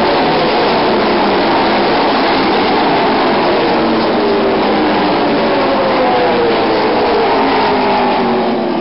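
A field of ARCA stock cars' V8 engines running on a dirt oval. It is a steady mass of overlapping engine notes, several of them sliding down in pitch as cars go by.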